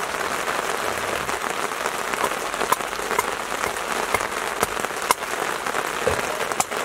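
Heavy rain falling steadily, a dense even hiss with scattered sharp drip-like ticks through it.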